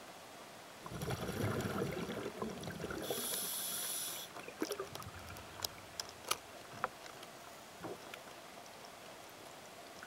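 Scuba regulator heard through the camera housing: the diver's exhaled bubbles rumble out for about two seconds, then a hiss of inhaled air through the regulator. A few sharp clicks and pops follow.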